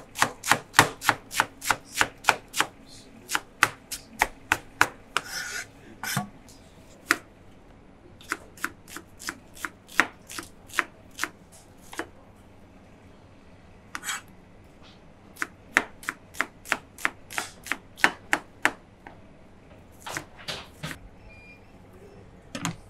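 Knife chopping on a cutting board in quick runs of about three strokes a second, with short pauses between the runs.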